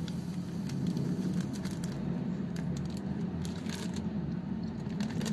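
Steady low background hum with a few faint light ticks and rustles.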